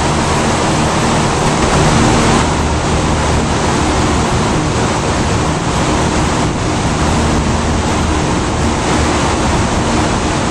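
Steady, loud rushing noise of rooftop dry-cooler fans and mechanical equipment running, with a low hum underneath.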